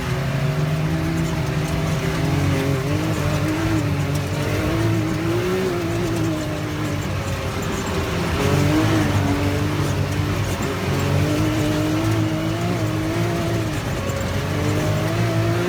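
Side-by-side UTV engine running under way, its pitch rising and falling as the throttle changes.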